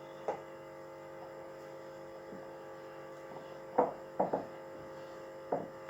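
A steady electrical hum, with five short soft knocks as hands press puff pastry down into a pie dish.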